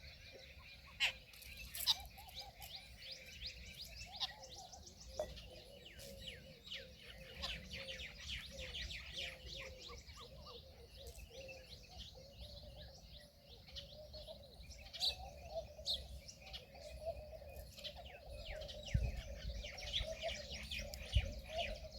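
Many small birds chirping and twittering in a busy chorus, with a low wavering call running underneath and a few sharper, louder calls near the start and toward the end.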